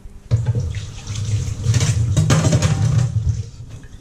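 Kitchen tap running into a stainless-steel sink, starting about a third of a second in and shutting off about three and a half seconds in.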